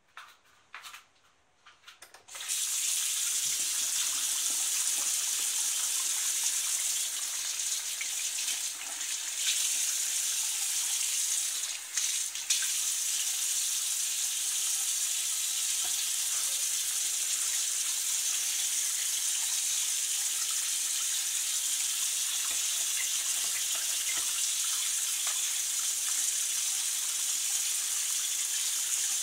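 A few light clicks, then about two seconds in a single-lever tap is opened and water runs steadily from the faucet into a washbasin, splashing on the bowl and drain.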